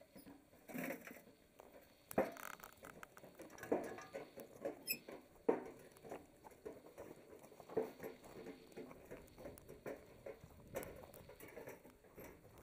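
Stones knocking and clattering as rocks are picked up and loaded into a wheelbarrow, mixed with crunching and scraping on loose gravel. The knocks come irregularly, a few sharper ones standing out.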